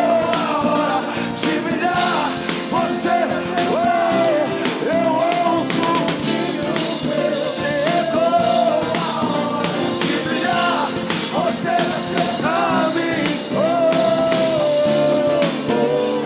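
Live acoustic worship music: a voice sings a slow melody in long held notes over a band accompaniment.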